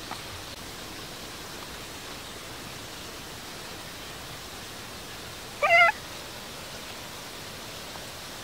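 A cat meows once, briefly, about five and a half seconds in, over a steady rushing background noise.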